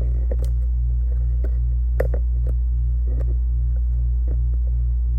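Steady low electrical hum, with a handful of light clicks and taps scattered through it, the sharpest about two seconds in.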